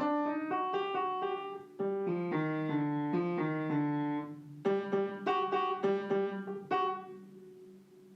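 Background piano music: a calm, steady run of repeated notes with a brief pause about two seconds in, fading out near the end.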